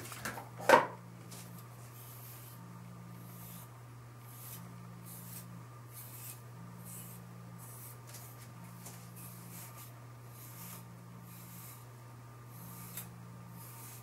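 Plastic comb drawn through wet hair, a soft rasping stroke repeating roughly once a second, over a steady low hum. A loud bump about a second in.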